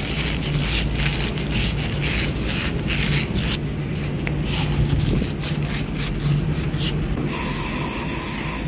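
A pad rubbed in quick repeated strokes over a metal shaft, scratchy and uneven, over a steady low hum. About seven seconds in a loud hiss starts and runs for about a second and a half.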